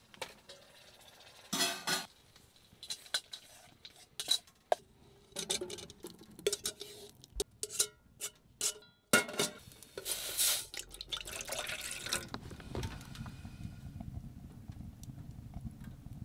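Metal clinks, knocks and clatters of a stainless steel camp cooking pot, its lid and a utensil as the lid is lifted off a steaming pot of food, in separate bursts over about ten seconds. A low steady rumble takes over for the last few seconds.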